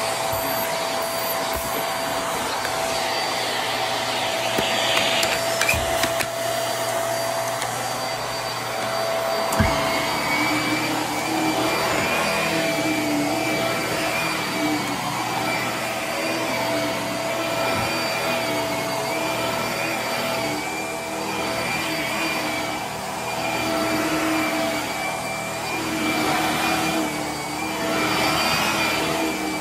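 Hart vacuum cleaner running steadily while it is pushed back and forth over carpet. Its whine holds throughout, and a second, wavering whine joins about a third of the way in. The sound swells and eases with each stroke in the second half.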